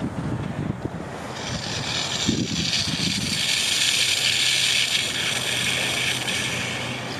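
Marina pump-out station suction drawing sewage and air from a boat's holding tank through the hose at the deck waste fitting. A hissing rush builds about a second in and eases near the end, over a low steady hum.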